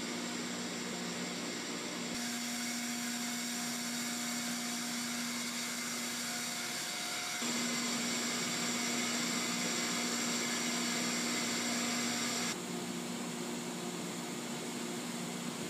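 Steady machinery hiss and hum of an offshore oil platform's process area, with a low steady tone under it. The noise shifts abruptly in level and pitch about two, seven and twelve seconds in.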